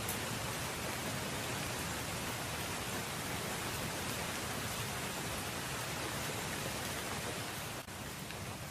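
Steady, even rain-like hiss, the masking sound track of a subliminal audio, with a brief dip in level near the end.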